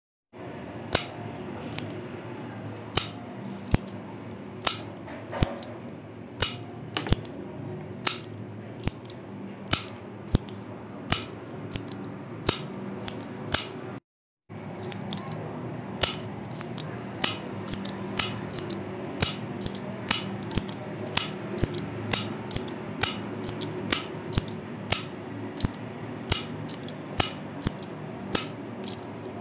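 Retractable pen's push button clicked over and over by a thumb: sharp plastic clicks, about one or two a second at an uneven pace, over a steady background hiss and hum, with a brief break about halfway.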